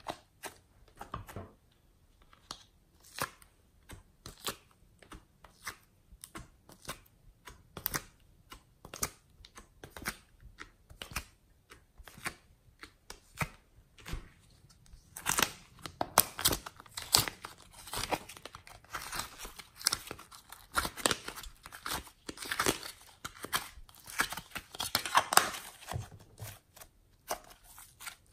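Hands squeezing and pulling soft clay and slime: a string of sticky clicks and crackles, sparse at first, then denser and louder from about halfway through.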